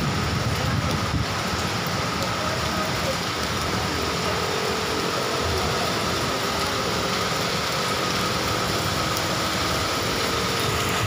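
Heavy tropical rain falling steadily: a constant, even hiss.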